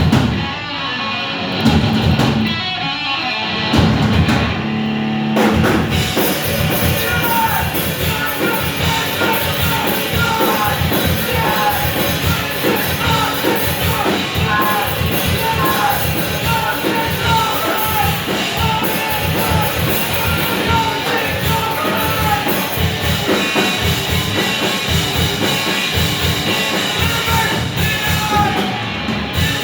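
A rock band playing live, with a drum kit, guitar and singing. A sparser opening gives way to the full band with a steady drum beat about five seconds in.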